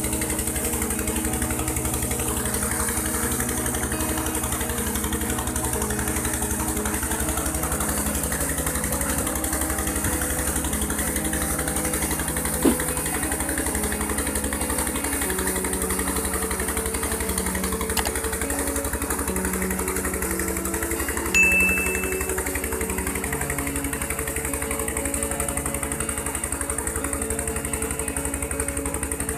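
Diesel engine running steadily, driving a 12-inch tube well pump, over the rush of water gushing from the pump's outlet pipe. A single sharp click comes a little before halfway, and a short high tone about two-thirds of the way through.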